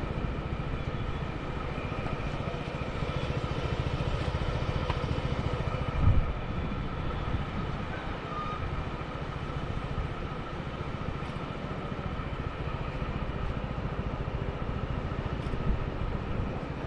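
Steady low rumble and hum of an engine running nearby, with a brief thump about six seconds in.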